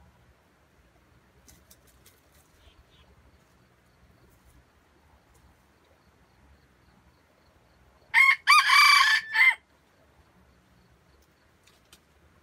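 A red junglefowl (wild jungle chicken) rooster crowing once, about eight seconds in. The crow is short and clipped, about a second and a half long, with a brief break near its start.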